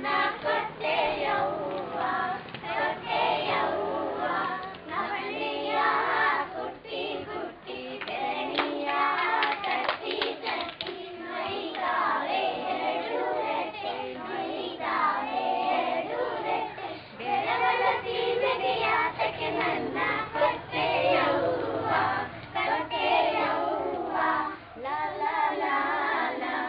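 A group of young girls singing an action song together, with a woman's voice among them, and some hand clapping about a third of the way through.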